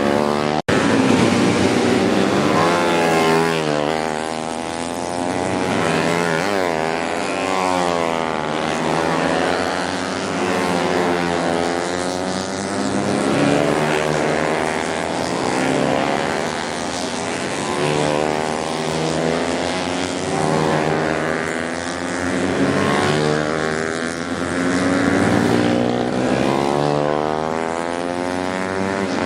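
A pack of 125cc four-stroke underbone race motorcycles racing, many engines revving high at once, their pitches rising and falling and crossing as they accelerate, shift and pass. The sound cuts out for an instant about half a second in.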